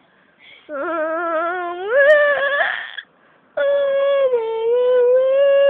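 A person's voice holding two long wordless wavering notes: the first slides up in pitch, and after a short pause the second is held at an even pitch.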